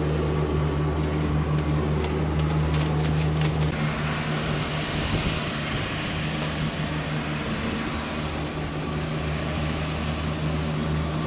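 Riding lawn mower engine running steadily as a constant low hum. For about the first three and a half seconds, paper and plastic wrap crinkle as they are peeled off burger patties.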